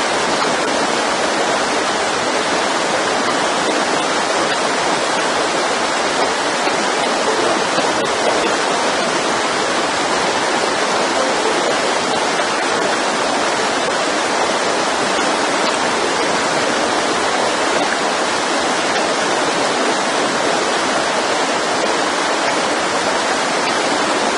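Mountain stream: the steady, unbroken rush of flowing water.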